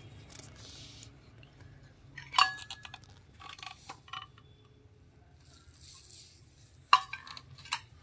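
Metal housing of a single-stage wet-and-dry vacuum motor clinking and knocking as it is handled and turned over, not running: a few sharp knocks, the loudest about two and a half seconds in with a brief metallic ring, and another sharp one near the end.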